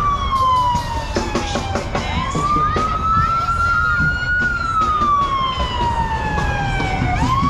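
Ambulance siren sounding a slow wail. The pitch falls over about two seconds, rises again, falls once more and begins to rise near the end, about one cycle every five seconds, over traffic and street noise.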